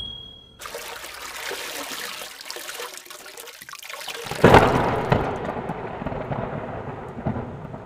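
Sound effect of a logo intro: a rushing, watery noise, then a sudden louder boom about four and a half seconds in that slowly dies away.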